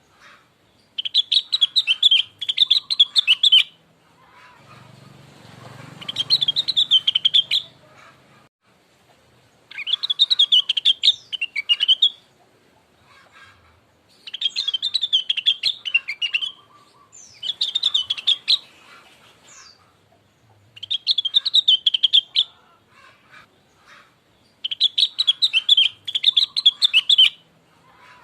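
Rengganis (cucak wilis) leafbird singing as a lure recording, meant to prompt another bird to answer. It comes in repeated phrases of fast, high chattering notes, each a second or two long, with short pauses between.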